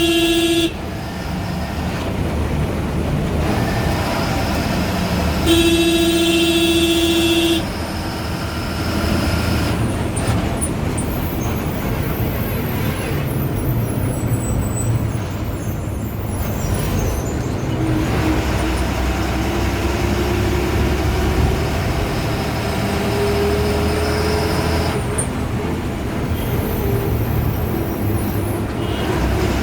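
Ashok Leyland BS4 bus diesel engine running on the road, with a horn sounding briefly at the start and again for about two seconds some six seconds in. In the second half the engine note climbs steadily over several seconds as the bus gathers speed.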